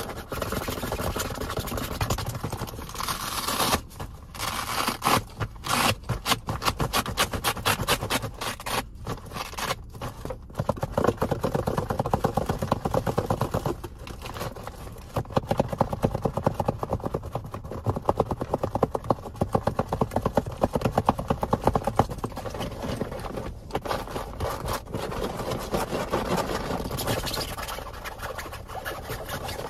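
Hands rummaging through a bag: rapid, continuous scratching and rustling with many sharp clicks, pausing briefly a few times.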